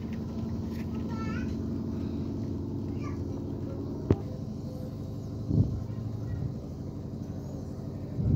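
A sharp plastic click about four seconds in as a TV's front-panel button circuit board is unclipped from its plastic button strip, then a softer handling knock over a steady low hum.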